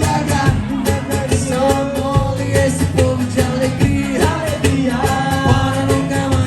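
A band playing pop-rock music with a steady beat and guitar.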